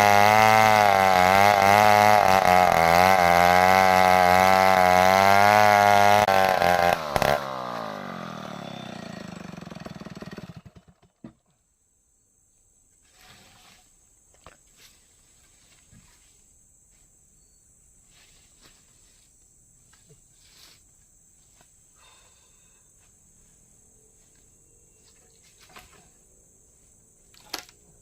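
Chainsaw engine running under load with its pitch wavering, then cutting off with a click about seven seconds in and winding down to a stop over a few seconds. Afterward, faint steady insect chirring with a few faint ticks and knocks.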